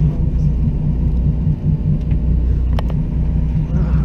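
Boat engine running steadily, a low hum with even pitch, with one sharp click about three seconds in.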